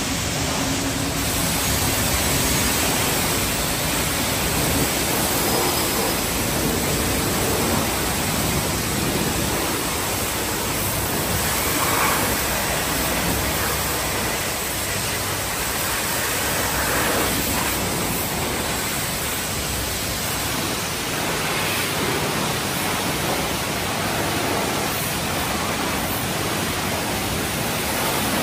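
High-pressure wash wand at a self-serve car wash spraying water onto a minivan's body panels: a loud, steady hiss of spray.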